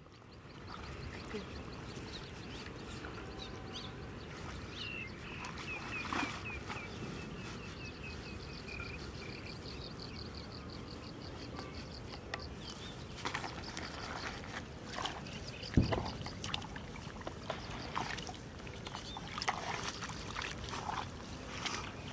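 Footsteps on a dirt paddy bund and then through wet mud and shallow water, scuffing and knocking more often in the second half, over a steady outdoor background. About five seconds in, a bird calls in a quick run of short chirps lasting a few seconds.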